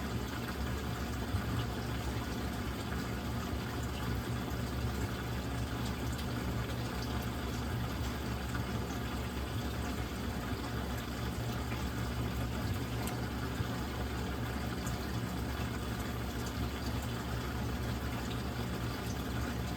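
Steady rush of moving water over a low pump hum, from reef aquarium equipment running.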